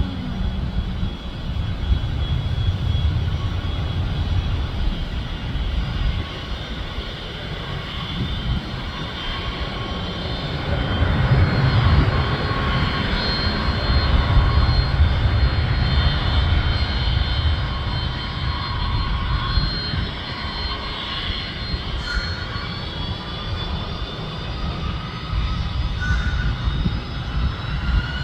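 Jet aircraft engines running steadily, a rumble with a high whine over it, loudest around the middle. Near the end the whine rises in pitch.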